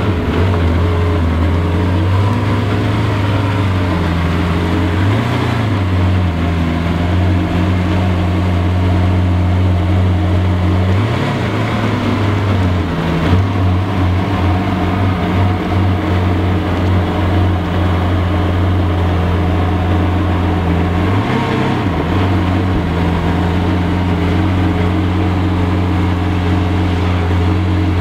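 Lamborghini Aventador LP700-4's V12 engine idling steadily, with three short blips in revs spread through. It runs unevenly for a few seconds in the middle as the car creeps off at low speed.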